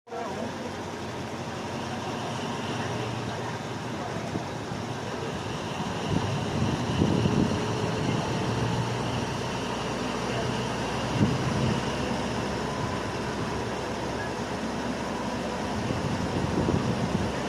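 Alsthom diesel-electric locomotive hauling a 13-car passenger train: a steady engine rumble mixed with wheel and rail noise, growing a little louder midway.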